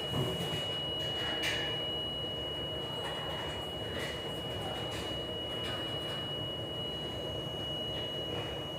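Galley dishwashing machinery running with a steady hum and a constant thin high whine, and a few short clinks and clatters of dishware.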